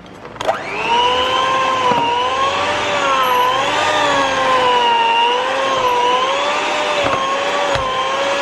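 Electric mixer with a dough hook kneading bread dough after oil has been added. It switches on with a click about half a second in, speeds up, and then runs with a steady whine whose pitch wavers gently as the dough drags on the hook.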